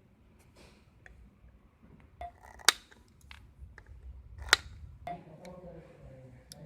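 Scattered small clicks and taps of tools and parts being handled during an electronics repair, two of them sharp and loud, about two seconds apart.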